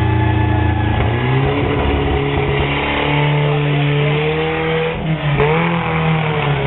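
Engine of a stripped, cut-down wrecked car running loudly as it drives slowly past, its pitch stepping up about a second in and again near three seconds, then dipping and rising once more around five seconds.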